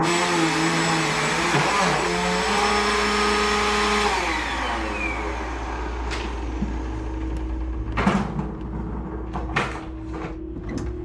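Vacuum cleaner running, then switched off about four seconds in, its motor winding down with a falling whine. A few sharp knocks and bumps follow.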